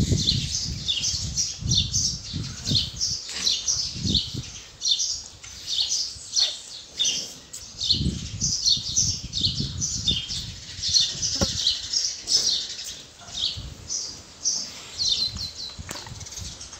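Small birds chirping busily: many short, high chirps in quick runs, over irregular low thumps and rustling.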